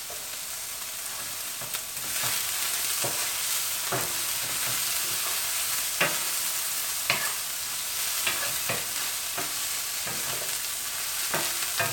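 Chicken pieces sizzling in a frying pan as a wooden spatula stirs them. The steady sizzle gets a little louder about two seconds in, and the spatula knocks against the pan now and then.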